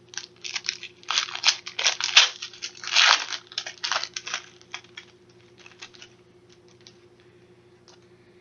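Trading card pack wrapper being torn open and crinkled: a quick run of crackling rips for the first five seconds or so, loudest about three seconds in, then only a few faint crinkles.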